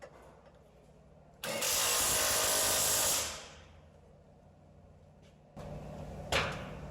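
A power tool runs a bolt in on the brake caliper assembly for about two seconds, starting abruptly and dying away.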